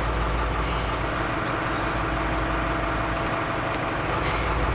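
Motor vehicle engine idling, a steady low rumble.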